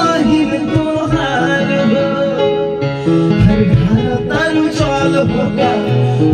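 A man singing a Bhojpuri song into a microphone over an instrumental backing track with a plucked-string melody.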